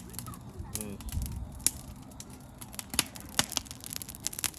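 Burning firewood crackling, with sharp pops and snaps at irregular intervals.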